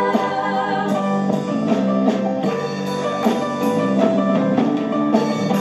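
Instrumental break in a gospel song: the accompaniment plays on with a steady drum-kit beat and guitar, with no singing between choruses.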